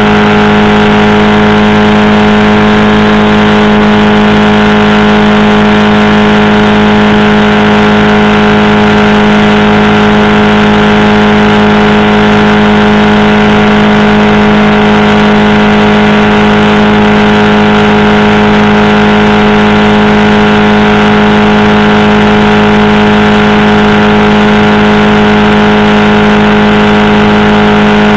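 Powered parachute's engine and propeller running steadily in flight, very loud and close, at an unchanging pitch.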